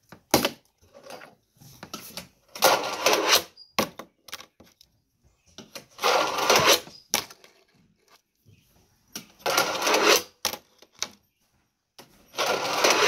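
A fingerboard's wheels rolling back and forth on a small ramp in four runs of about a second each, with sharp clacks of the board striking the ramp between them.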